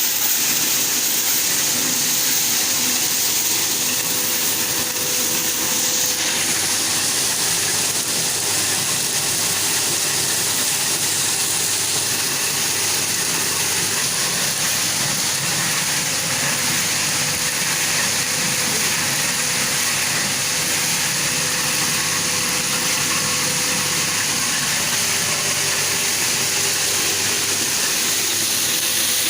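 Krupuk separating machine running steadily: a constant hiss with a steady hum underneath.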